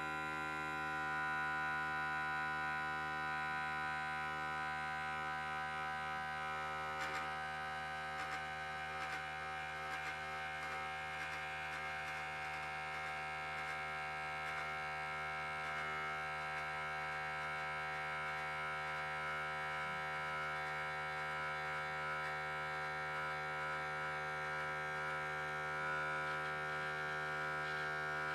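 A children's battery electric toothbrush buzzing steadily as it lies in an aluminium foil takeaway tray floating on water; its vibration is what pushes the tray along as a boat.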